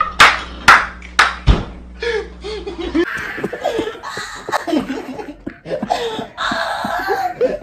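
People laughing hard. In the first second and a half there are a few sharp smacks. After about three seconds a different stretch of laughter follows without the low background hum.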